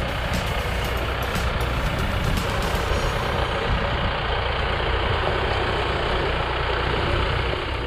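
A vehicle driving up a steep unpaved mountain track: its engine runs under a steady rush of tyre and road noise, with a few faint light clicks in the first three seconds.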